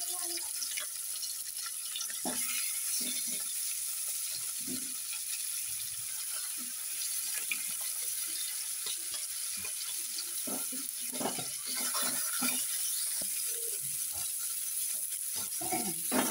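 Fish heads sizzling as they fry in hot oil in a non-stick kadai, a steady hiss with scattered knocks and scrapes as more pieces go into the pan and a spatula moves them, busiest about ten seconds in.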